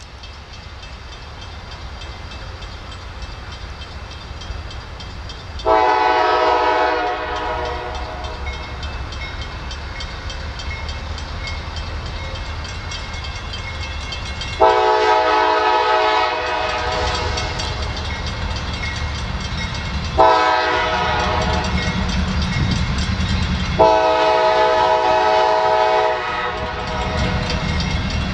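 Approaching diesel freight locomotive sounding its multi-note horn in the long-long-short-long pattern that signals a grade crossing. A low rumble of engine and wheels grows steadily louder underneath.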